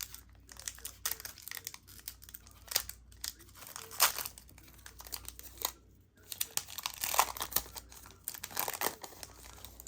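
Pokémon TCG booster pack's foil wrapper crinkling and being torn open, in irregular crackles with the loudest about four seconds in and again between seven and nine seconds.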